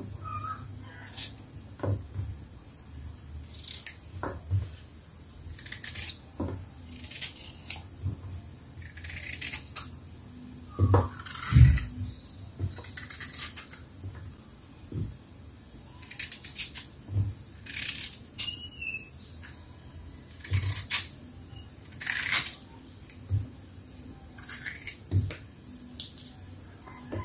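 Kitchen knife slicing firm green mango on a wooden cutting board: irregular crisp cuts every second or so and low knocks of the blade on the board, the loudest knock about halfway through.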